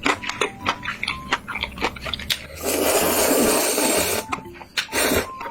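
Close-miked eating: wet chewing and smacking clicks, with a long slurp of noodles lasting about a second and a half, starting about halfway through.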